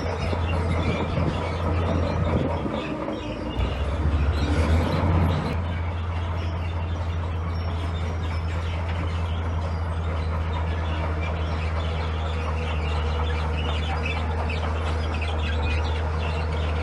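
Heavy construction machine's diesel engine running steadily, rising louder for a couple of seconds about four seconds in before settling back.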